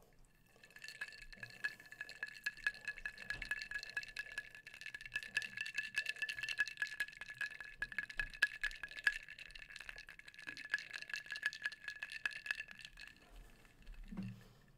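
Ice cubes being swirled in a glass tumbler, a fast steady run of rattling clinks with the glass ringing under them, stopping about a second before the end. A soft low thump follows near the end.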